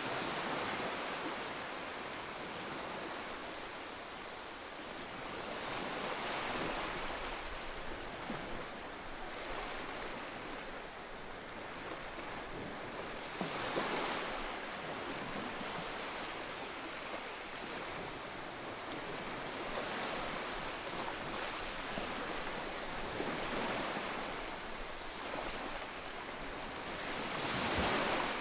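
Ocean waves breaking and washing on a shore, a steady hiss of surf that swells with each wave every few seconds.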